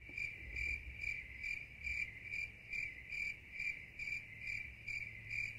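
Insect chirping on one high pitch in an even rhythm, about two chirps a second.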